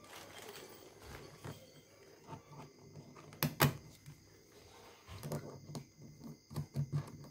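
Small clicks and knocks of hands working a backpack sprayer's fabric shoulder straps on their steel hooks against the plastic tank, with two sharper clicks close together about three and a half seconds in.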